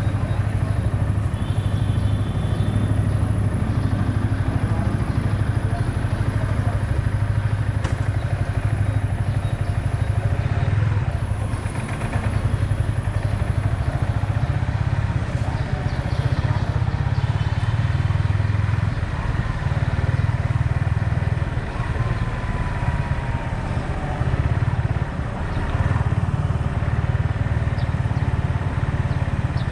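Yamaha XSR 155's single-cylinder engine running under way, heard from the rider's helmet camera, with short dips in loudness about twelve and twenty-five seconds in.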